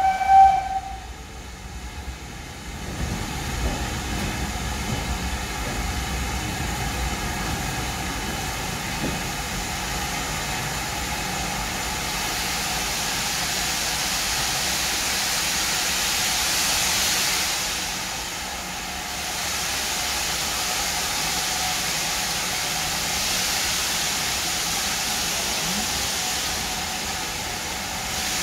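Steady hiss of steam from a GWR Manor class 4-6-0 steam locomotive, heard from a carriage at the platform, with a faint steady tone beneath it; the hiss grows brighter about halfway through as the train gets ready to pull away. A whistle note cuts off in the first second.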